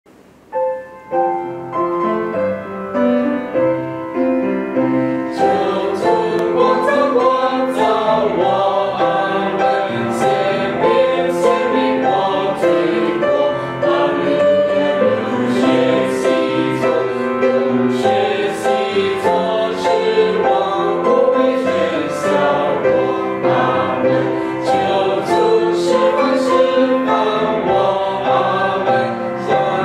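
A choir sings a Chinese-language hymn with piano accompaniment. A short piano introduction comes first, and the voices enter about five seconds in.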